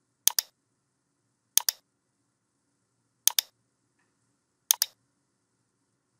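Computer mouse button clicking: four quick double clicks spaced about a second and a half apart.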